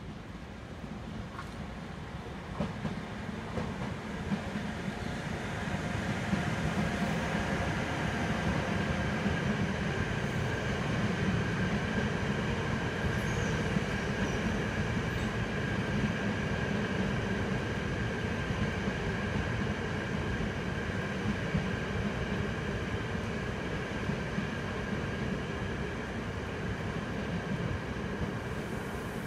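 NS yellow electric passenger train running slowly along the platform track. A low rumble builds over the first few seconds and then holds steady, with a steady high whine over it.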